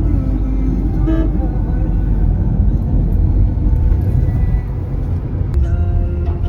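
Car on the move: a steady low road rumble, with a short horn toot about a second in.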